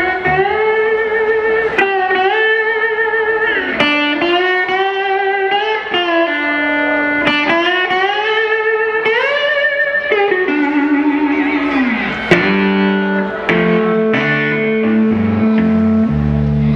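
Slide guitar on a hollow-body electric guitar playing a blues introduction alone, its notes gliding up and down between pitches with a wavering vibrato. Lower held notes come in about twelve seconds in.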